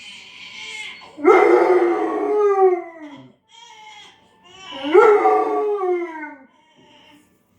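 German Shepherd howling in a crying way, reacting to a baby crying on TV: two long howls, about a second in and again around five seconds, each starting high and sliding down in pitch.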